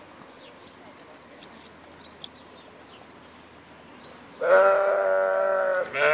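Sheep bleating: two long, loud bleats near the end, the second following straight on from the first, from the ewe with her newborn lamb. Before them, only faint short chirps and one soft click.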